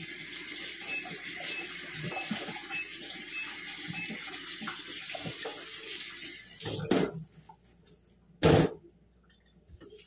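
Kitchen tap running steadily into a sink for about seven seconds, then stopping, followed by two loud thumps.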